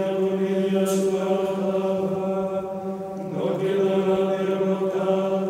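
Chanted vocal music: voices holding one steady low droning note, with another voice line rising and falling over it about three seconds in.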